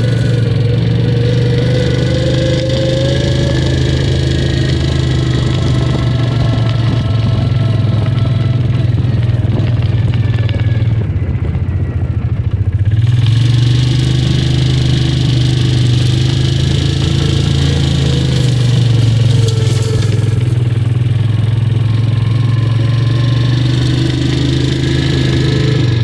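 Engine of a small open utility buggy running as it drives along, a steady drone whose note drops around eleven seconds in and climbs again about two seconds later.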